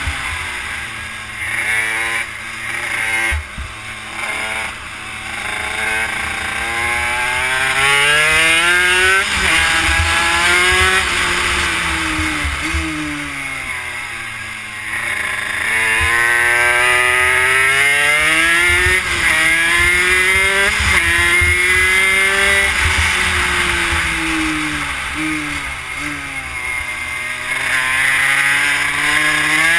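Honda CR80 two-stroke single-cylinder engine in a Yamaha YSR50 minibike, run hard on track: the pitch climbs and drops sharply at each upshift, and sags in slow dips as the rider backs off and downshifts for corners, then climbs again.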